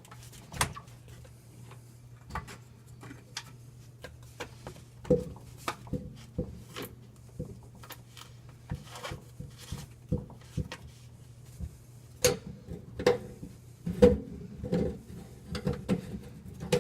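Irregular clicks, clacks and knocks of PVC drain pipe and fittings being handled and pushed together under a sink, sparse at first and coming thick and louder in the last few seconds, over a faint steady low hum.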